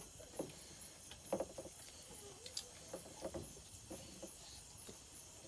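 Faint eating sounds at a meal: chewing and mouth smacks, with light clicks of fingers and food on steel plates, scattered irregularly.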